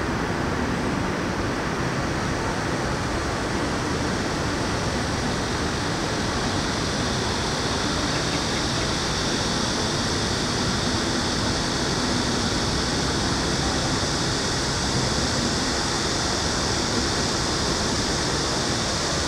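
Steady city ambience: an even wash of distant traffic noise with a constant high hiss that grows slightly stronger about a third of the way in, with no sudden sounds.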